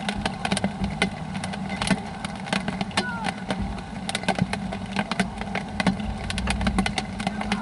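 Raindrops striking an umbrella close by, heard as many irregular sharp ticks, over a steady low hum.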